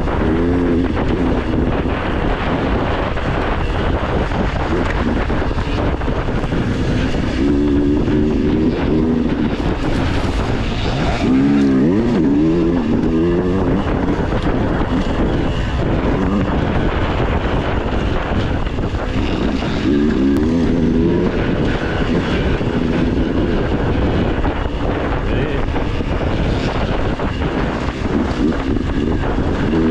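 Dirt bike engine running while riding, its revs rising and falling again and again as the throttle opens and closes.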